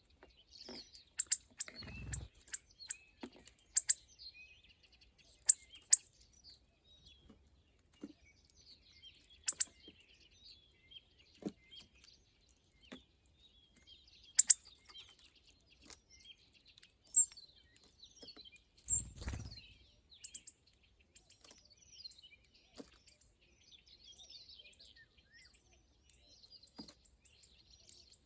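Small birds chirping and calling in short, scattered notes, with sharp ticks among them and two low, dull bumps, one about two seconds in and one past the middle.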